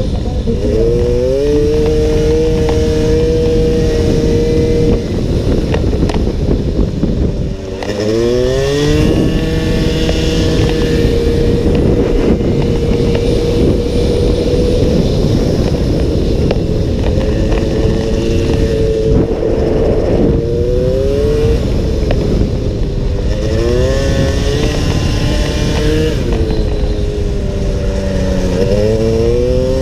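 Small racing motorcycle engine heard from an onboard camera, run hard around the track: its note holds high on the straights, drops deeply once about a quarter of the way in as the bike slows for a corner, then climbs again, with several more rising runs and short pitch drops between gears later on. Wind rushes loudly over the microphone throughout.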